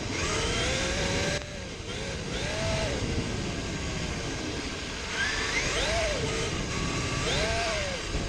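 Traxxas X-MAXX RC monster truck's brushless electric motor whining, its pitch rising and falling with several bursts of throttle, over a steady hiss.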